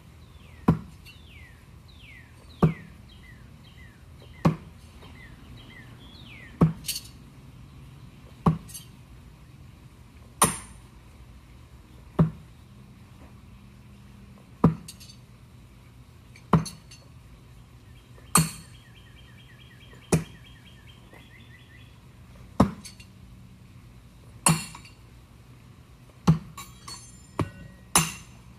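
Throwing knives striking a target board one after another, about every two seconds, each hit a sharp knock with a brief metallic ring. Near the end a few quicker, lighter clinks come between the hits.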